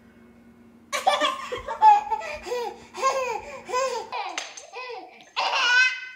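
Young children laughing: from about a second in, a string of hearty laughs in repeated bursts, then, after a break at about four seconds, a baby's higher-pitched laughing near the end.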